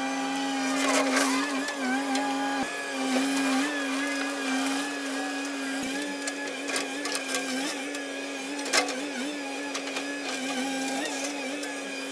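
Caterpillar M318D wheeled excavator running as it moves in: a steady machine whine that wavers slightly in pitch. A sharp clank comes about nine seconds in.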